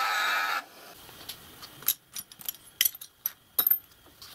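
An end mill being ground in a rest against a bench grinder wheel, a steady grinding hiss that cuts off abruptly about half a second in. Then scattered light metallic clinks of small steel parts (screws, Allen keys, a steel block) being handled.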